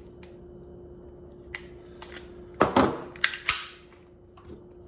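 A quick cluster of sharp clicks and clacks from hard objects being handled, about two and a half seconds in, with a few fainter clicks before it and a faint steady hum underneath.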